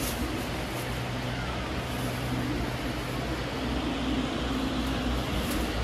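Steady background hum and hiss, with no clear events.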